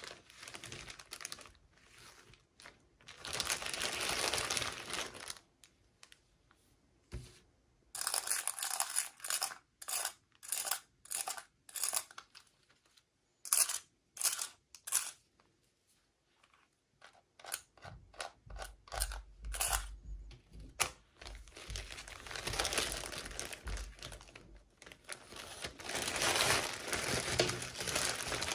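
Packaging being torn open and crinkled by hand. There is a stretch of rustling, then a run of short quick rustles, and long continuous crinkling in the second half.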